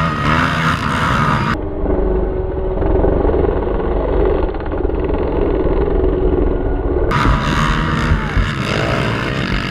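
Motorcycle engine running continuously, with a heavy low rumble.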